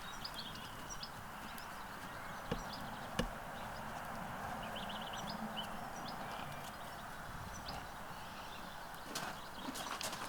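Horses moving about outdoors, with a couple of sharp knocks like hoof strikes about two and a half and three seconds in, over a steady background hiss; faint small-bird chirps partway through.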